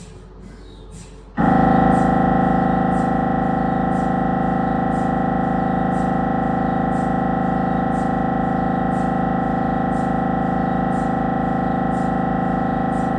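Siemens Magnetom Avanto 1.5 T MRI scanner: faint, regular ticking about twice a second, then about a second and a half in a loud, steady, many-toned buzz from the gradient coils cuts in suddenly as an imaging sequence starts, holding an unchanging pitch.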